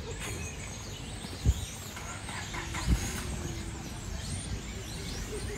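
Outdoor ambience of a steady low traffic rumble, with faint high chirps and two short low thumps about a second and a half apart.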